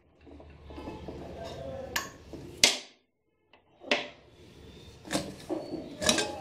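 Aluminium pressure cooker lid being twisted loose and handled, with a scraping rub and several sharp metal knocks, the loudest about two and a half seconds in.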